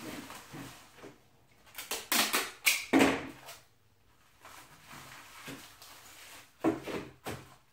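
Plastic parts bags crinkling and rustling as they are handled and opened, in a loud spell about two seconds in and again near the end.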